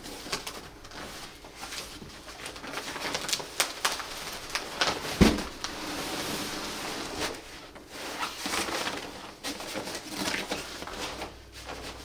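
Long cardboard shipping box being tipped and handled, its flaps scraping and crinkling as a folding cot's fabric carrying bag is pulled out with rustling and rubbing, with a heavy thump about five seconds in.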